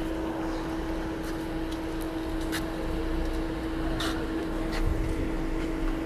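A steady mechanical hum, one low tone held without change, with a few faint clicks over it.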